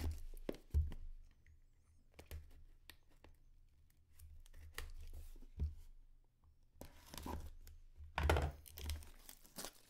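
Plastic shrink wrap on a trading-card box being slit with a folding knife and torn off: scattered small clicks and scrapes at first, then louder bursts of crinkling and tearing near the end.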